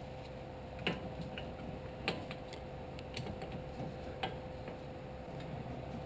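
A few sharp metal clicks and knocks, a second or two apart, as a C-clamp is handled and set over a disc-brake caliper to push the piston back, over a faint steady hum.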